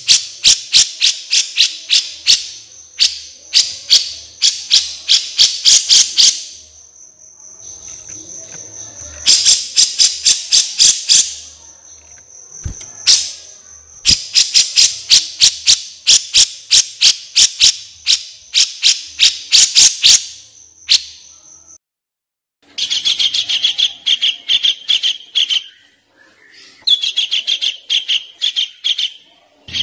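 Recorded songbird calls played as training song for cage birds. Long runs of sharp, rapid chips over a thin high trill give way, after a brief break about two-thirds through, to a different bird's fast buzzy rattling phrases.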